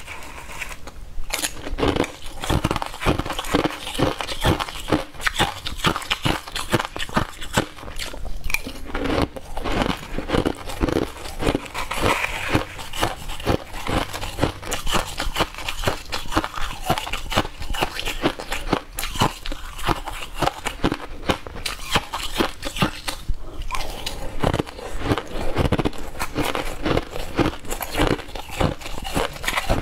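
Crushed ice being bitten and chewed close to the microphone: rapid, continuous crunching, with scoops of a spoon into the ice.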